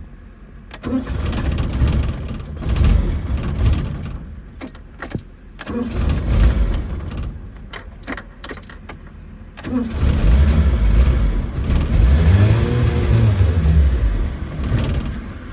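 A car engine cranked three times and coughing each time. The first two tries die after a few seconds. The third runs longest, with a rev that rises and falls near the end.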